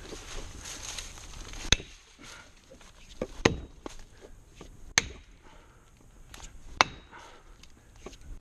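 Four sharp knocks, about one and a half to two seconds apart, with smaller clicks and rustling between them.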